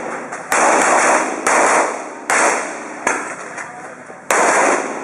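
Pistol shots fired in a quick string during an IPSC stage: about five sharp cracks, roughly a second apart and one of them softer, each trailing off over about half a second.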